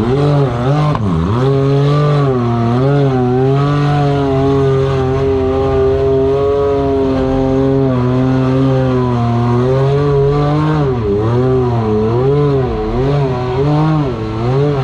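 Side-by-side UTV on 45-inch-plus mud tires, its engine revving hard under load as it drives through a water-filled mud bog trench. The revs rise and fall several times, hold high and fairly steady through the middle, then surge up and down quickly near the end.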